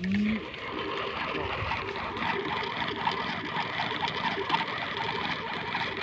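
A small motor running steadily.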